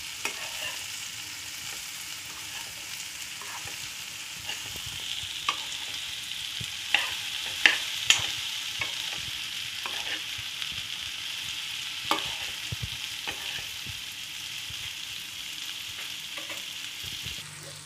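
Chopped okra frying in oil in a nonstick kadai with a steady sizzle, while a steel spoon stirs it, scraping and clicking against the pan now and then. The sizzle drops away just before the end.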